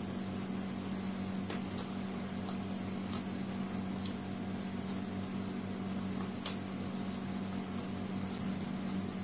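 Chewing and biting on fried chicken lollipop, heard as a few short sharp mouth clicks, the clearest about three seconds in, halfway through and near the end, over a steady room hum.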